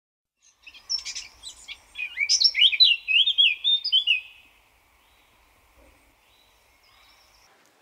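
Bird song: a quick run of high chirps and sweeping warbled notes for about four seconds, then it stops, leaving a faint background.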